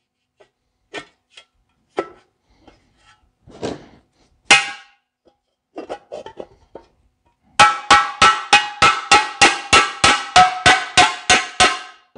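Hammer striking a dented sheet-metal air cleaner cover to straighten it: a few scattered taps and knocks, then from about halfway a steady run of ringing blows, about three or four a second.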